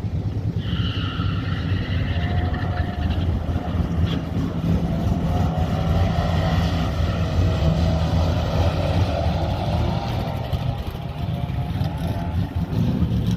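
Drag-race car engines: a steady low engine drone throughout, with the rising notes of a car accelerating hard, clearest near the end.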